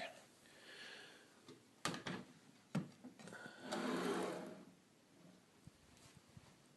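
Wooden centre tray of a rolltop desk being handled and slid out: a few sharp knocks and clicks, then a sliding scrape of wood on its rails lasting about a second.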